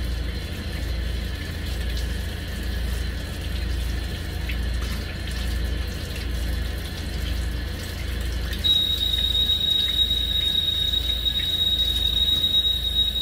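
Water running from a faucet into a stainless steel sink, splashing over hands being rinsed under it. About two-thirds of the way through, a steady high-pitched whistle starts and holds.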